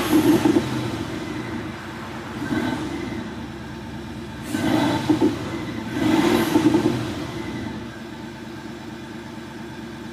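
Mercedes-Benz CLA (C118) engine note shaped by an active sound system, revved four times in short blips with a steady idle in between.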